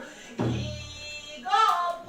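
Pansori singing accompanied by a buk barrel drum. About half a second in, a drum stroke lands with a deep boom that rings for about a second, and the singer's voice comes back in near the end with a wavering held note.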